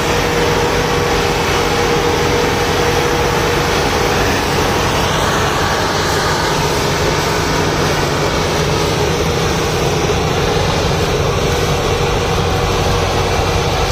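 Millat 385 tractor's diesel engine running loud and steady under heavy load, straining to pull a trolley overloaded with sugarcane.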